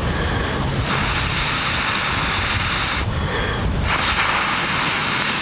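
Breath blown through a pocket bellows tube into a small campfire's smouldering tinder to feed it oxygen: two long airy blows of about two seconds each, with a short break between them, over a steady low rumble.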